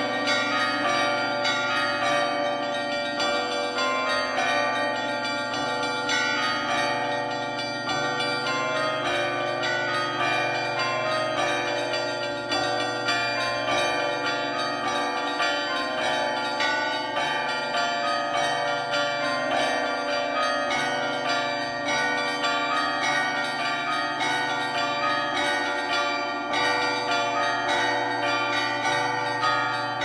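Church bells cast by the Rudolf Perner foundry, several bells of different pitch rung together in a continuous, dense peal, with each strike overlapping the ringing of the others.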